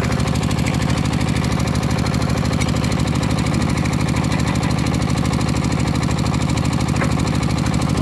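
A small engine running steadily at a constant speed, with a fast, even pulsing.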